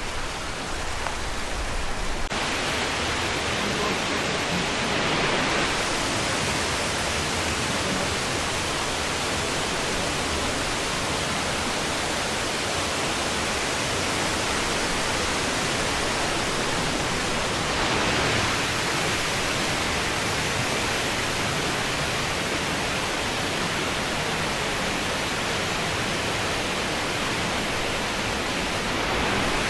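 Steady rushing of water cascading down a gorge stream, a dense, even noise with no breaks, a little louder from about two seconds in.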